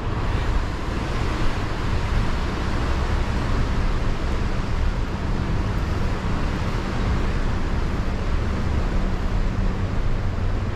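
Tourist road train running: a steady low engine hum under an even rush of road and wind noise.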